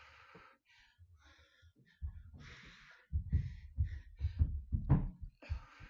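A woman's heavy exertion breathing, a few loud breaths in and out, during a set of dumbbell rows. From about three seconds in come a run of low, irregular thumps, the loudest sound here.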